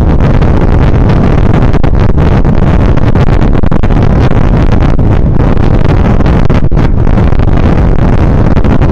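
Loud, steady wind buffeting on the microphone of a camera on a moving bike.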